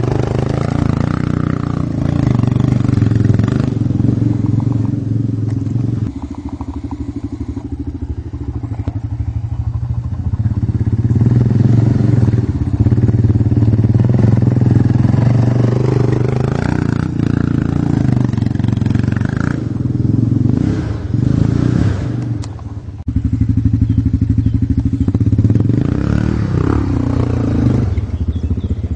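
Dirt bike engine running under varying throttle, its revs rising and falling several times as it rides over a forest trail, with a quick pulsing beat from the engine in the lower-rev stretches.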